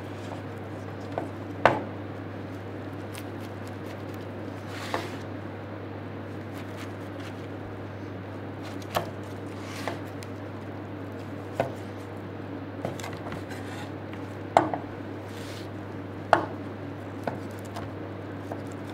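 Knife carving a roast chicken on a cutting board: irregular sharp taps and knocks of the blade against the board as it cuts through the crisp skin and meat, a few of them louder. A steady low hum runs underneath.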